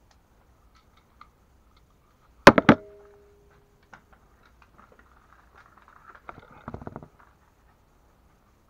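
Well MB4410A bolt-action spring airsoft sniper rifle firing, with the BB striking within a fraction of a second: three sharp cracks close together about two and a half seconds in, leaving a brief ringing tone. A short rattling scuffle follows about six to seven seconds in.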